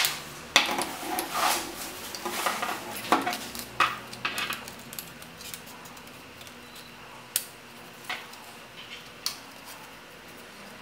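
Thin flat wooden lamp-kit pieces clacking and scraping against each other as they are handled and fitted together. A dense flurry of knocks and rubs comes first, then a few single clicks spaced out near the end.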